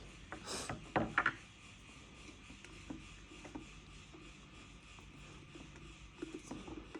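Small parts of an electric kettle being handled during repair: a brief scrape about half a second in and a few sharp clicks around a second in, then scattered faint ticks.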